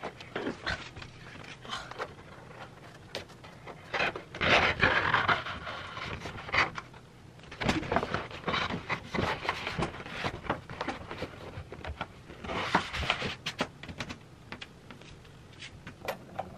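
A large paper poster sheet rustling and crinkling as it is handled, with scattered clicks and taps. There are two longer stretches of rustling, about four seconds in and again about twelve seconds in.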